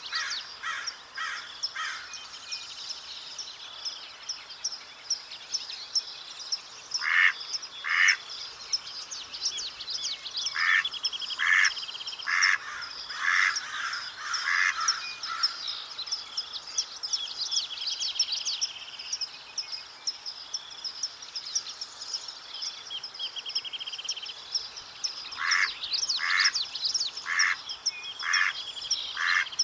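Mallard ducks quacking in short runs of several quacks each, with pauses of a few seconds between runs, over continuous high-pitched songbird chatter.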